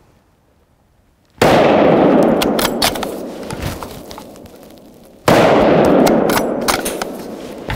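Two rifle shots from a scoped bolt-action hunting rifle, about four seconds apart, each report dying away slowly over a few seconds.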